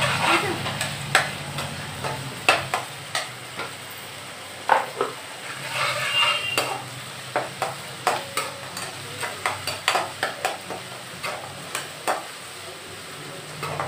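Slotted steel spoon scraping and knocking against a metal kadai while onions, green chillies and ginger-garlic are stirred in frying oil: irregular clicks and scrapes over a steady sizzle.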